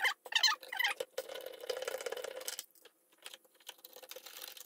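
Hand screwdriver with a nut-driver bit backing a fastener out of a car radiator fan's bracket: about a second of gritty scraping, then a few light clicks and taps of metal on the plastic fan housing.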